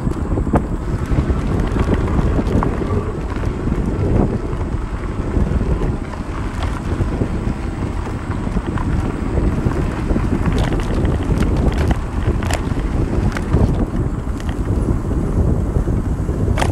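Wind buffeting the microphone of a camera moving along a trail, a steady low rumble, with a scatter of sharp clicks and rattles a little past the middle.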